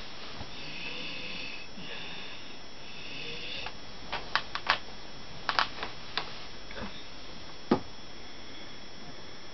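Soft sniffing breaths, then a scatter of sharp clicks and knocks starting about four seconds in, in small clusters, with the loudest a single knock near the end.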